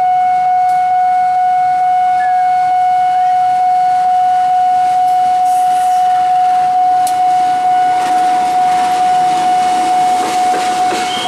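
Level-crossing warning alarm sounding one steady, unbroken high tone. Toward the end a KAI CC 201 diesel-electric locomotive passes close by, its engine and wheels growing louder under the tone.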